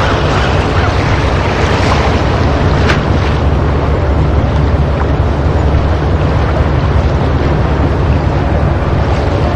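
Sea waves washing against rocks, a steady rush of surf with wind rumbling on the microphone. There is a brief faint tick about three seconds in.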